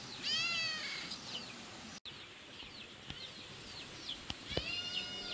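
A cat meowing twice, once at the start and again near the end, each call short and arched in pitch. Small birds chirp throughout.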